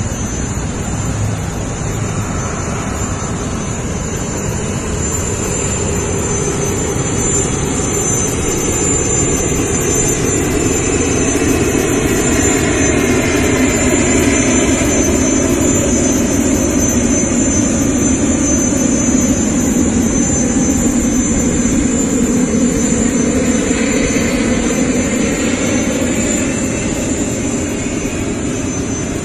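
Airplane engine noise running continuously with a steady high whine. It grows louder toward the middle and eases slightly near the end, with a pitch that slowly falls in the middle, as when an aircraft passes.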